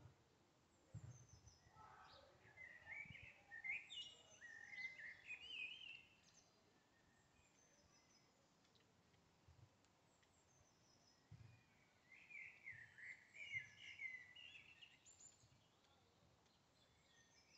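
A songbird singing two warbling phrases of quick, varied notes, each a few seconds long and about ten seconds apart, over a quiet background.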